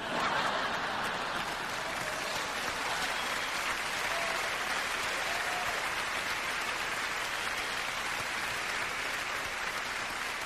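A large audience applauding, breaking into clapping all at once and keeping up a steady, dense applause for about ten seconds.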